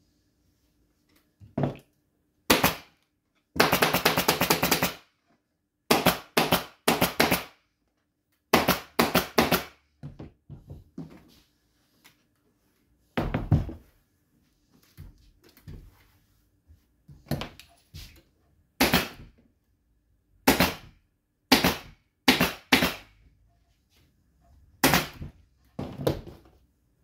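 Pneumatic upholstery staple gun firing staples through fabric into a wooden chair frame: sharp shots in quick groups of two to four, with one rapid run of shots about four seconds in.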